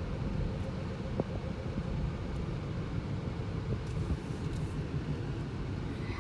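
Steady low rumble of a car on the road, engine and tyre noise together, with a single faint click about a second in.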